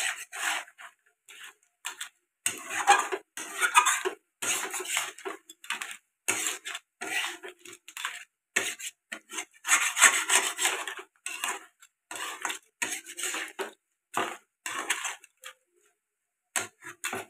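Flat metal spatula scraping and stirring crab and potato curry around a metal kadai: a fast, irregular run of short scrapes and clanks with brief gaps between strokes. The crab is being fried in the masala before the water goes in.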